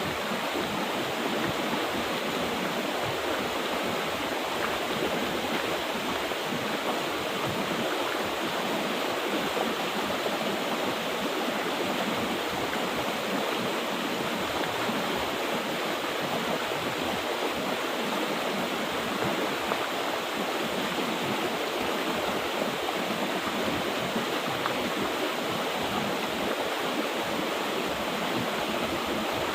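Mountain river flowing over rocks: a steady, unbroken rushing of water.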